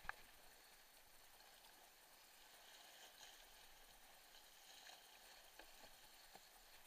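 Faint, steady rush of fast creek water around a plastic whitewater kayak running a rocky ledge. A sharp knock right at the start, the loudest sound, and a few faint taps near the end.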